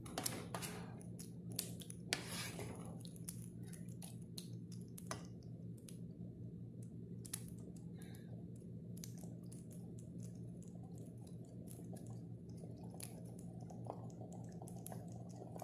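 Ground beef and tomato sauce simmering in a nonstick frying pan, with scattered small crackling pops, and a wooden spoon scraping and stirring through it in the first few seconds. A steady low hum runs underneath.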